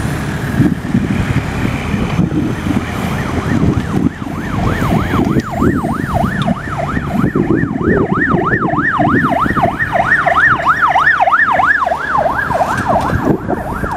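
An electronic siren in a fast yelp, its pitch sweeping up and down about three times a second, starting about four seconds in and cutting out near the end, over a steady low rumble.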